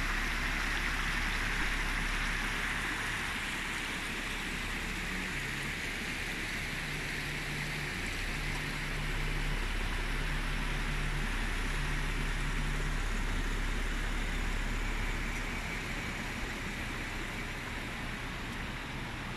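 Small mountain creek rushing over rocks: a steady hiss of running water, with a low steady hum beneath it.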